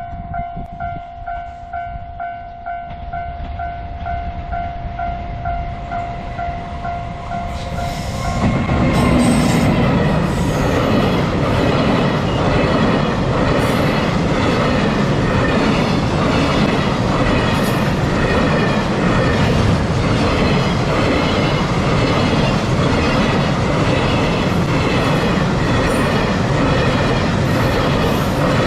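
Level-crossing warning bell dinging rapidly and steadily. About eight seconds in, a container freight train hauled by an EF210 electric locomotive arrives and passes. The wheels of its wagons clatter over the rail joints in a steady repeating rhythm, louder than the bell.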